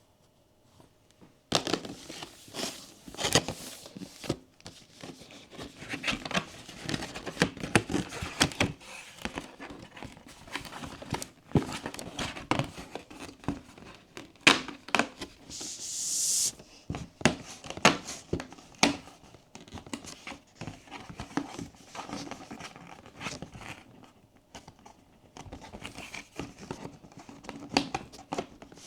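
Close-up ASMR handling of blind-box packaging: plastic wrap and cardboard crinkling and tearing, with many sharp taps and clicks. A longer hissing tear rises a little past halfway.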